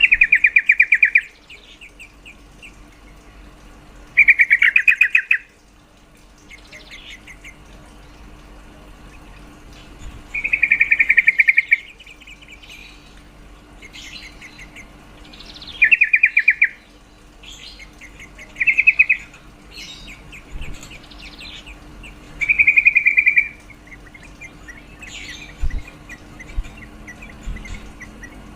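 Female yellow-vented bulbul calling: six short, fast rattling bursts, each about a second long and a few seconds apart, with softer chirps in between.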